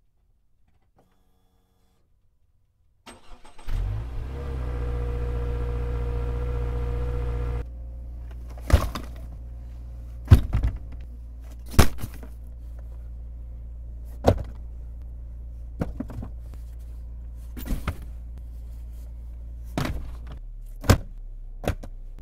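A car engine starts about three seconds in, runs for about four seconds with a louder, higher hum, then settles to a steady idle. About eight sharp clunks follow, spaced a second or two apart, as gear is set down in the cargo area.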